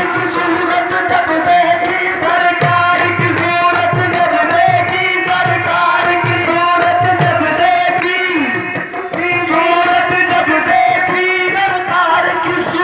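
Qawwali: voices singing over hand-drum accompaniment, the drum beating about twice a second.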